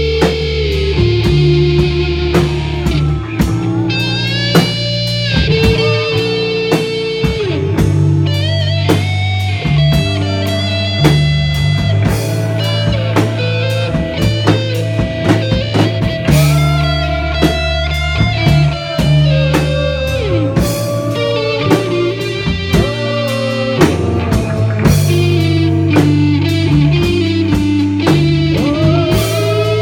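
Live rock band playing without vocals: an electric guitar lead with sustained, bending notes over bass guitar and a drum kit.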